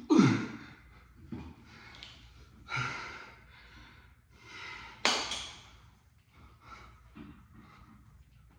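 A man groaning and breathing hard with the strain of leg raises: a loud falling groan at the start, then heavy exhales, the sharpest about five seconds in, growing softer toward the end.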